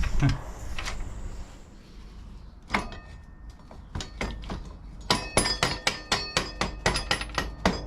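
Metal tapping and clinking of hand tools on motorcycle rear-wheel hardware: a few separate ringing taps, then a quicker run of strikes, about three or four a second, from about five seconds in.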